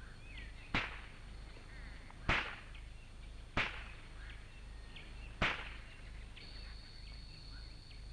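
Four shotgun shots, one every second and a half or so, while bird-hunting for guinea fowl and partridges. Faint bird chirps sound between the shots, and a steady high insect call starts near the end.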